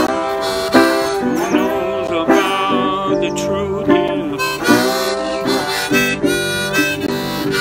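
Harmonica played from a neck rack, with several bending notes, over a metal-bodied resonator guitar played with a slide, its plucked notes struck in a regular rhythm.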